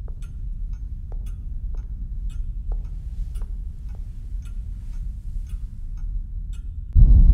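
A clock ticking about twice a second over a low steady rumble. Near the end, loud low music starts suddenly.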